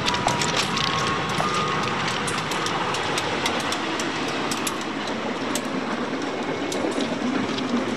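Passenger train hauled by a diesel locomotive arriving and rolling past along the platform, a steady rumble with wheels clicking over the rail joints.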